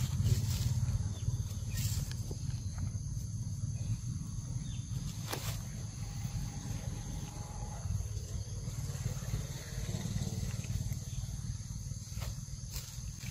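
Outdoor ambience: a steady high insect drone over a low rumble, with a few sharp clicks.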